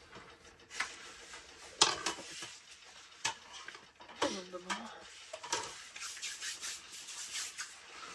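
Scattered light clicks and knocks of dishes and utensils being handled and gathered up after a meal, with some rubbing. A short vocal sound comes about four seconds in.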